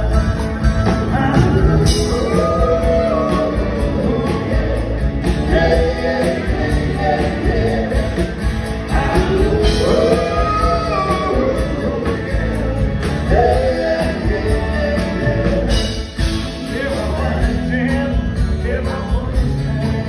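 Live rock band playing a song with a sung lead vocal over electric guitars, bass, keyboards and drums, loud and continuous through the hall's PA.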